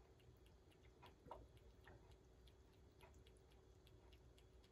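A cat feeding at its bowl: faint quick clicks of its mouth at the bowl, about four a second, with one slightly louder click a little over a second in.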